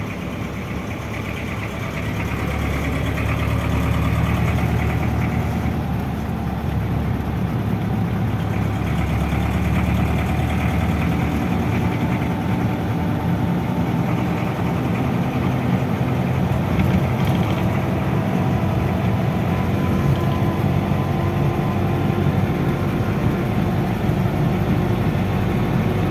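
Robur truck's engine running steadily on the road, heard from inside the cab over road noise. It gets louder about two seconds in, then holds an even note.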